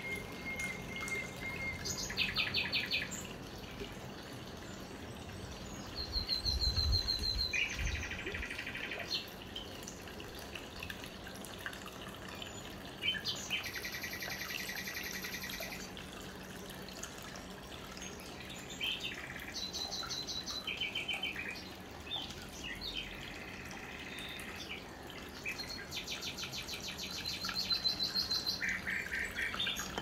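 Water trickling steadily down the small cascades of a tabletop cement waterfall fountain, with birds chirping in short, rapid trills every few seconds over it.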